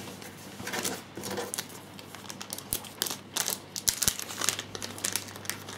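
Small clear plastic parts bag crinkling in the hands as it is handled, a run of short, sharp rustles starting about half a second in.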